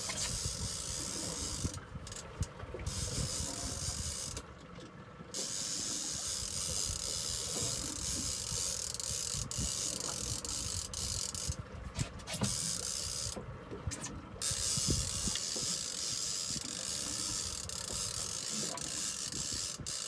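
Steady wind and water noise on a small boat at sea: a hiss with uneven low buffeting rumble on the microphone.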